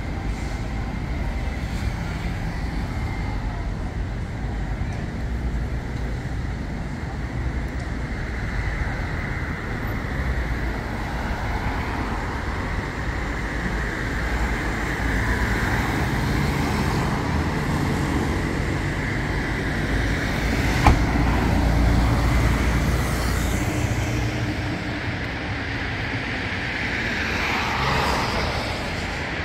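City street noise dominated by road traffic: a steady rumble of passing cars that swells and fades, with one sharp click about two-thirds of the way through.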